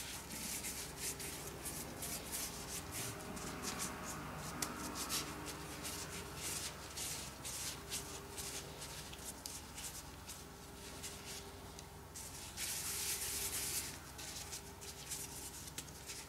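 Disposable plastic gloves rustling and crackling faintly as the hands roll a ball of cookie dough between the palms.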